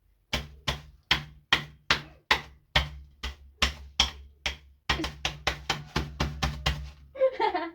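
Kitchen knife chopping on a cutting board in a steady run of sharp knocks, about two to three a second, quickening to about five a second after about five seconds.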